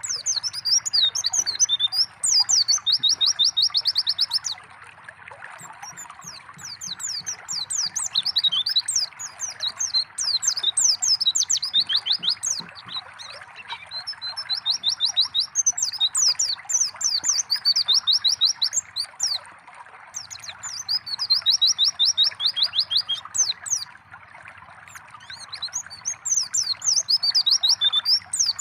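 White-eye (pleci) singing in bursts of fast, high chirps and rapid trills, with short pauses between phrases, over a steady trickle of running water.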